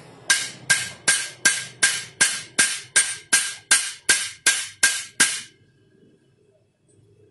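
A hammer striking metal in a steady series of about fourteen blows, between two and three a second, each with a short metallic ring, stopping about five seconds in. The blows are peening the rivets that hold new rubber dampers in a Yamaha Jupiter Z clutch housing.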